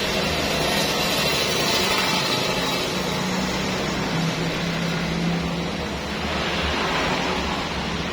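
Pressure washer running: a steady motor hum under a constant hiss of spraying water.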